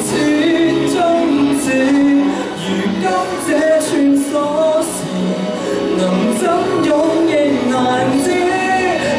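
Man singing a pop-style song into a handheld microphone, amplified over the hall's sound system, with instrumental accompaniment beneath his voice.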